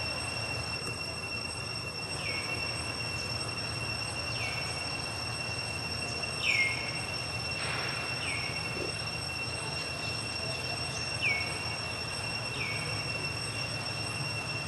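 Steady, high-pitched drone of insects, with about six short squeaks that each slide downward in pitch, spread through the stretch.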